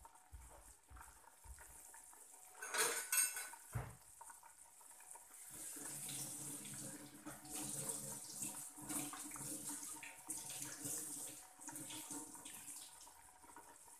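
Dishes being washed at a kitchen sink: pots and utensils clatter about three seconds in, then a tap runs steadily into the sink from about halfway through.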